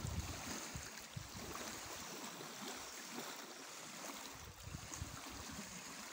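Steady rushing hiss of flowing river water, with irregular low rumbles and a few faint knocks.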